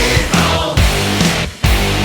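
Background rock music with heavy drums and distorted guitar, briefly dropping out about a second and a half in before coming back.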